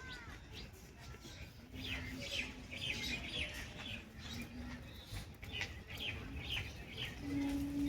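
A flock of small birds chirping in quick, short, falling notes throughout, with three low held notes, the last and loudest near the end.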